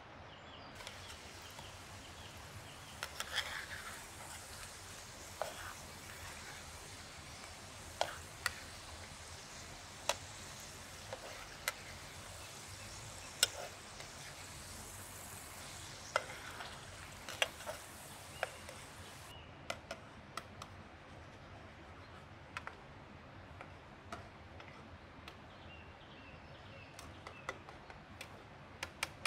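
Tomato slices frying in oil in a metal pan over campfire embers, sizzling steadily, with sharp clicks and scrapes of a metal utensil against the pan as they are turned. About two-thirds of the way through, the sizzle drops away, leaving scattered taps of the utensil on the pan.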